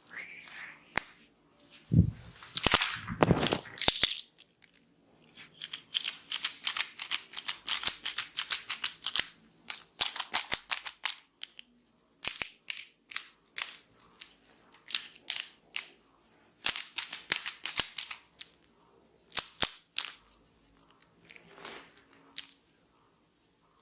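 Sharp crackling snaps in rapid runs of many clicks, broken by short pauses, typical of hair cracking during a head massage. Two heavier thumps about two and three seconds in.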